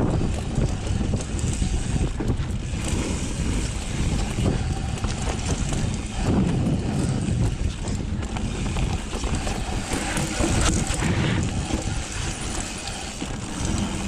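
Mountain bike descending a dirt trail: a steady rumble of tyres on the ground, with the bike rattling and knocking over bumps all through, and wind on the microphone.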